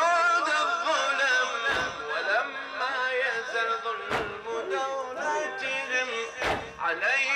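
A male reciter chanting a mourning elegy (latmiya) into a microphone through a PA, his amplified voice in a continuous melodic line. Sharp thuds land about every two and a half seconds, three times: the mourners beating their chests in unison to the chant.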